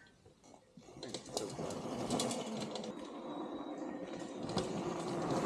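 Electric dirt bike with a 72 V, 8000 W hub motor run as a mid drive, whirring through its chain drive while its tyres crackle over the dirt trail. It comes up out of near quiet about a second in and grows steadily louder.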